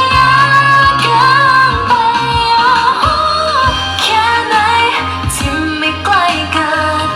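Thai pop song with a female voice singing held, sliding notes over an evenly pulsing bass beat.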